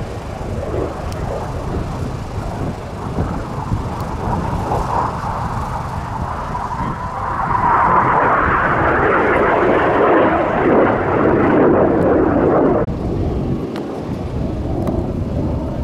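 BAE Hawk jet trainers passing by in flight: a rushing jet noise that swells about halfway through, stays loud for several seconds, then cuts off abruptly near the end.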